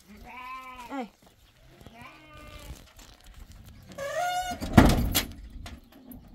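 Goats and sheep bleating, three calls, then the stable door pushed shut with a loud bang about five seconds in.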